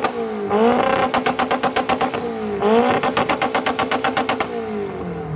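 Mitsubishi Lancer Evolution's turbocharged four-cylinder engine held on a two-step launch-control rev limiter, in two bursts. Each burst starts as the engine revs up and then crackles with rapid exhaust pops, about ten a second. The engine eases off about four and a half seconds in.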